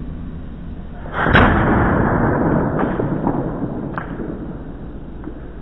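Hairspray-fuelled PVC combustion potato cannon firing about a second in: a sudden boom that dies away over two or three seconds, then a couple of faint clicks.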